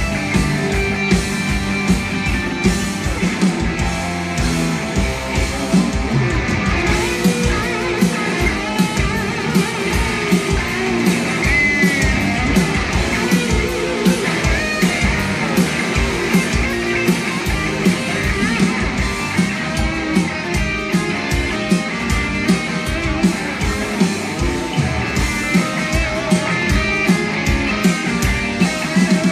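A heavy rock band playing live: electric guitars and bass over a steady drum beat.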